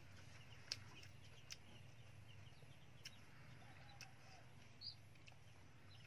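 Near silence: faint outdoor background with a few soft, sharp clicks and one short high chirp about five seconds in.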